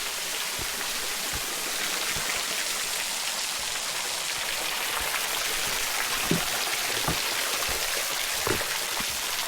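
Waterfall pouring into a cave pool: a steady hiss of falling and splashing water. There are a few soft low thumps in the second half.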